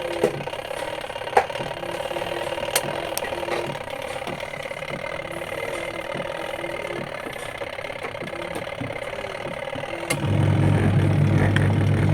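Mito WM1 mini portable washing machine's motor switching on with a click about ten seconds in and then humming steadily and louder, as the repaired timer is tried out. Before it starts there are a few sharp clicks over a steady background hum.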